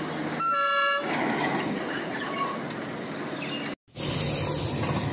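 Darjeeling Himalayan Railway toy train running, heard from inside a coach, with a short horn blast about half a second in. The sound drops out briefly just before four seconds, then the running noise picks up again.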